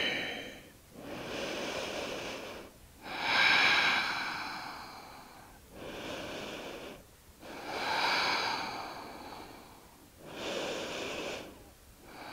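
A woman breathing slowly and deeply, in and out. Each breath is a soft swell of a couple of seconds, with brief pauses between them.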